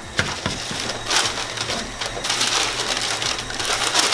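Crushed Oreo cookies crunching and a paper sheet crinkling as the crumbs are pressed by hand and the sheet is gathered up, in uneven surges.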